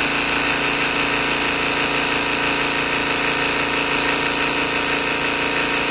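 GMC Syclone 6310 air compressor running steadily, pumping up its 6.3-gallon tank, which stands at about 70 PSI. A constant machine hum made of several steady tones.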